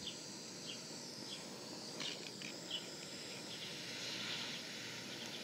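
Faint steady hiss of a handheld butane torch's jet flame playing on a burning plastic fidget spinner, with scattered faint high ticks.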